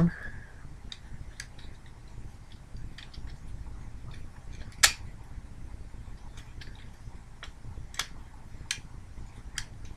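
Plastic clicks and snaps of a Transformers Prime Voyager Class Bulkhead action figure's parts being folded and pegged into place, scattered and irregular, the loudest snap about halfway through, over a faint low hum.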